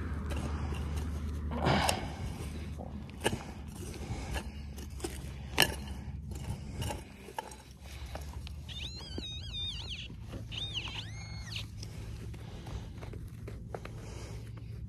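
A metal hand digging tool scraping and knocking in firm soil, with several sharp strikes, the strongest about two seconds and five and a half seconds in. About nine seconds in comes a brief high warbling sound, in two short phrases.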